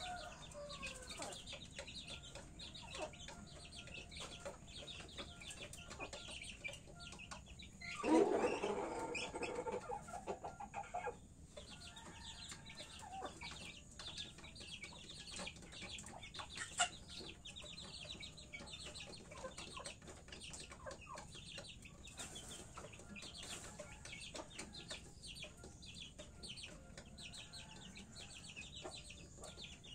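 Bangkok gamefowl chickens clucking and calling in a pen, with many short, rapid calls throughout. About eight seconds in there is a louder outburst lasting a couple of seconds.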